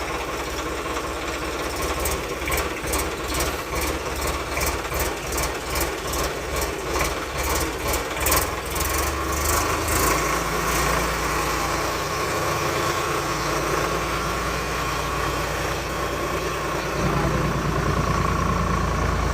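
Swaraj 855 tractor's diesel engine running, with a regular tapping about twice a second through the first half. It then runs steadily and grows louder near the end.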